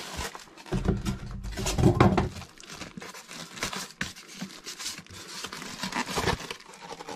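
Plastic wrap crinkling and moulded polystyrene packing rubbing and squeaking as a shrink-wrapped suitcase record player is handled and its foam end piece pulled off, with handling bumps against the cardboard box in the first two seconds or so.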